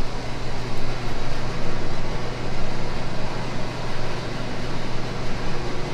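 Steady rushing noise with a low, even hum, typical of a commercial kitchen's ventilation or exhaust fan running.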